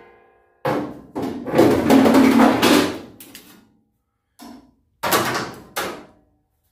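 Sheet-steel parts being handled on a steel truck bed. The ring of a hammered steel strip fades at the start. Then come knocks, a longer scraping clatter of the steel strip about 1.5 to 3 seconds in, and a couple more metal clanks of the strip and locking-pliers clamps near the end.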